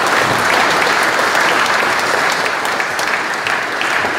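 An audience applauding: many hands clapping steadily, easing slightly near the end.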